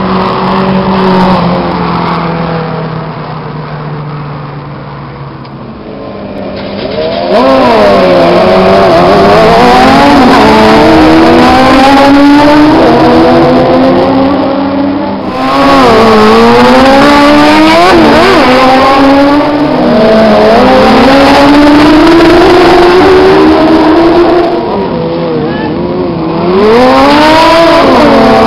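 Motorcycle engines racing past: quieter and steadier for the first several seconds, then loud from about seven seconds in. Their pitch repeatedly climbs as they rev hard and swoops down as they pass by.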